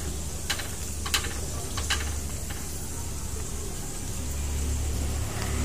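Slices of meat sizzling in a grill pan on a portable gas stove, over a steady low hum, with a few sharp clicks of chopsticks against the pan in the first two seconds.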